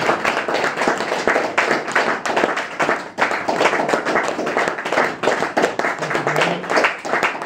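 Small audience clapping and applauding with dense, irregular claps at the close of a live set.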